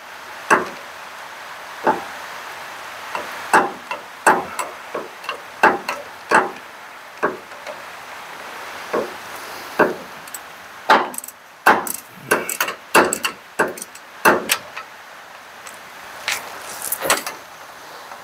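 Wrench clicking and clinking against metal while bolts at the front of a Ford Model T's torque tube are undone: irregular sharp metallic clicks, a few a second, coming thicker for a few seconds past the middle.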